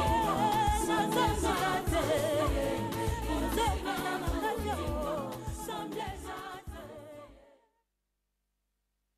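Closing song, a singing voice over a band with a heavy bass, fading out about seven seconds in to silence.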